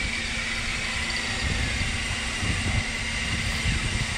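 Fishing boat's engine running steadily, a low rumble under wind and sea noise, with a constant high whine over it.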